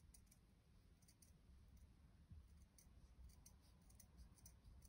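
Near silence: faint room tone with a scatter of faint, very high clicks.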